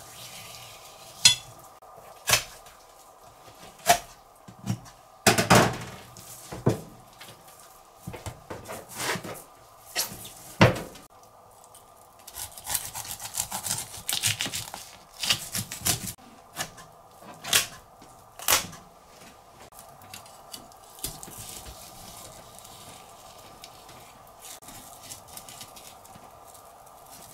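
A kitchen knife working a large yellowtail (buri) on a plastic cutting board: a series of sharp knocks and thuds as the knife and fish strike the board, the loudest about five seconds in, with a stretch of scraping knife strokes in the middle. A steady hum runs underneath.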